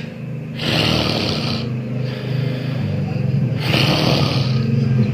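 A person snoring loudly with a deep, rough rumble. It is broken by two harsh, hissing breaths about a second long, one soon after the start and one past the middle.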